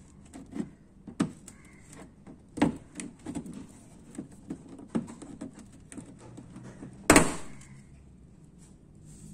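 Plastic clicks and knocks as a hand pulls and presses at a car's plastic wheel-arch liner to free its push clip. The knocks are scattered and irregular, and a single sharp knock about seven seconds in is the loudest.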